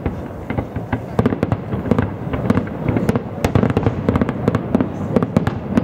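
Fireworks display: aerial shells bursting in a rapid, unbroken run of sharp bangs, several a second, overlapping one another.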